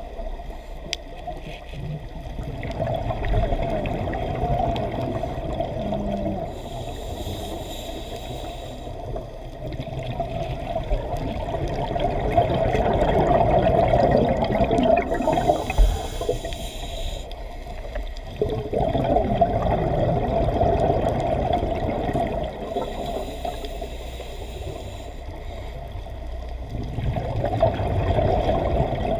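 Underwater ambience in a camera housing: a steady rushing, gurgling wash of water that swells and fades, with a stretch of bubbling hiss every eight seconds or so from a scuba diver's exhaled bubbles.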